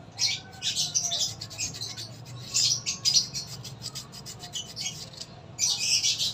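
Sandpaper rubbing on a Yamaha Mio scooter's front brake caliper piston in short, irregular strokes, bunched near the start, about two to three seconds in, and near the end. It is scrubbing light rust off the piston so that the piston will not scratch the rubber seal when it goes back in.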